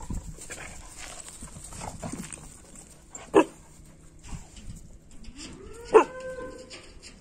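Dogs barking: two short, loud barks, the first a little over three seconds in and the second about six seconds in, the second trailing into a brief held note.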